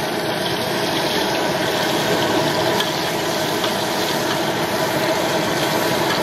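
Oil sizzling steadily in a hot steel wok, with egg frying in it and a metal ladle working the pan.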